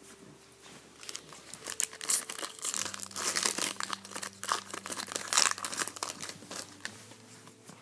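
Trading-card pack wrapper crinkling and rustling in the hands as cards are worked out of the pack. A dense crackle builds about two seconds in, is loudest in the middle, and fades near the end.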